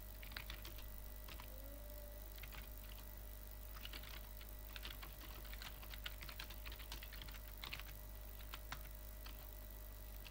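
Computer keyboard being typed on, faint clicks of keystrokes in short irregular runs with brief pauses between them, as CLI commands are entered.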